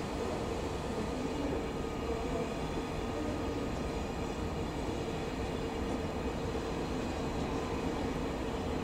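TGV Duplex double-deck high-speed train rolling slowly through station trackwork, a steady rumble of wheels on rails with a faint continuous hum.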